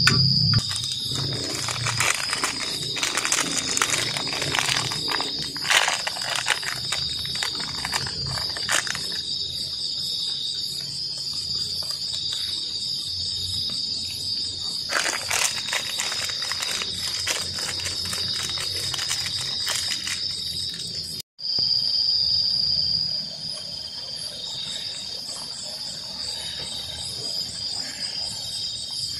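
Steady, high chorus of night insects, with scattered rustles and clicks of hands handling things close by.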